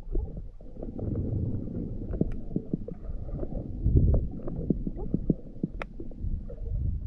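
Muffled underwater sound picked up by a camera in its waterproof housing while a diver swims along the bottom: a low rumble of water moving against the housing, with scattered clicks and ticks and a louder surge about four seconds in.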